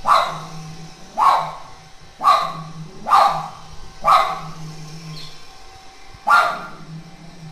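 Small dog barking repeatedly at a robot vacuum cleaner: six sharp barks, about one a second, with a pause of about two seconds before the last.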